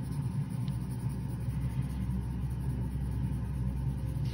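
Steady low rumble with no clear strokes or clicks in it.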